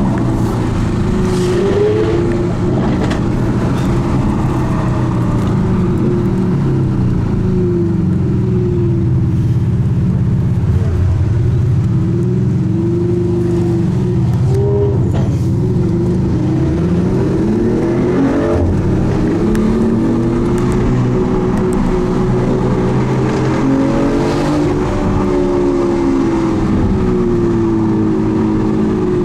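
Lamborghini Aventador S's V12 with a catless Capristo exhaust pulling hard through the gears. The engine pitch climbs, drops back at each shift and climbs again, over and over, with a few sharp exhaust pops.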